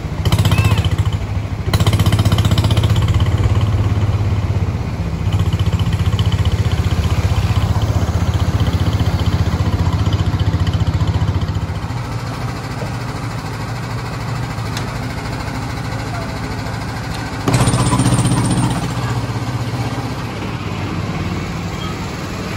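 The engine of a replica vintage ride car chugging with a rapid, even pulse as it drives along the track. The engine drops to a quieter run about halfway through as the car slows into the station, and a brief louder burst of engine noise comes near the end.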